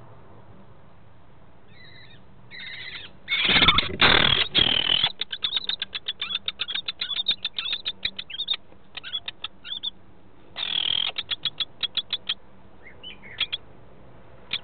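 Lesser kestrels calling inside a wooden nest box. A few calls come first, then a loud burst of wing-flapping and calling as the male arrives with prey, followed by rapid runs of short chattering calls, with another loud burst near the middle and a couple of calls near the end.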